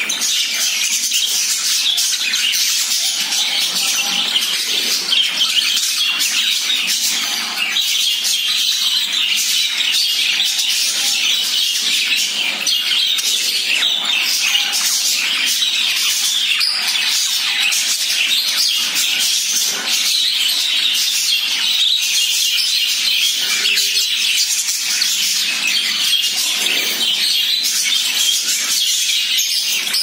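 A flock of budgerigars chattering without a break, many quick high chirps and squawks overlapping.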